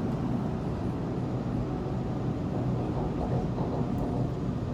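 Steady rumble of a Sydney Trains Waratah (A set) electric train running through a tunnel, heard from inside the carriage.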